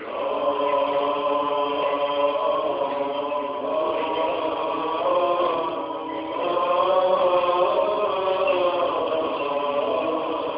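Several men's voices chanting together in Greek Orthodox Byzantine chant, long held notes that move slowly in pitch.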